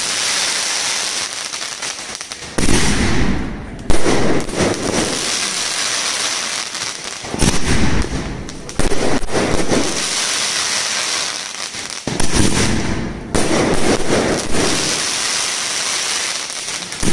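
Sony Azzaro sky shot cake firing its shells: sudden bangs come in pairs about a second apart, a pair every four to five seconds, each followed by dense crackling as the bursts open into gold crackling stars.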